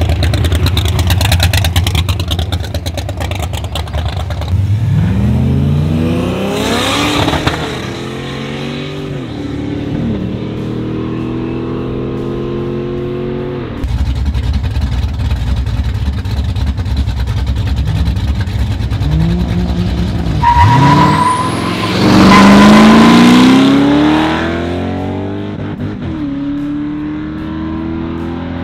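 1962 Chevrolet Biscayne drag car's engine running, then revving up hard as it launches and pulls away, with the revs dropping back after each run; this happens twice, with the second run the loudest and carrying a high whine.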